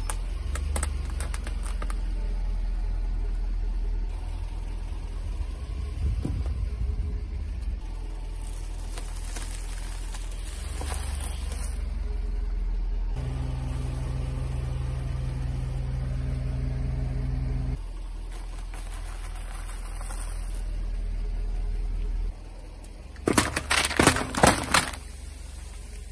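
Car engine rumbling at low speed, with a steady hum for a few seconds midway. Near the end comes a quick run of sharp crunching and cracking, the loudest sound, as something crunchy is crushed under a tyre.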